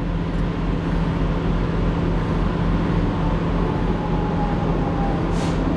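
Steady low drone of an idling truck engine, with a brief hiss about five and a half seconds in.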